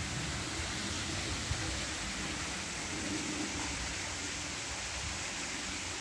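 Steady, even rush of water from a small waterfall running low, falling into a rock pool.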